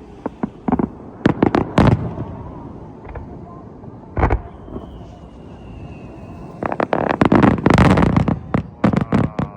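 Fireworks shells bursting in the air. A few sharp bangs come about a second or two in and one more near the middle, then a rapid string of crackling bangs fills the last few seconds. A faint, slightly falling whistle sounds in between.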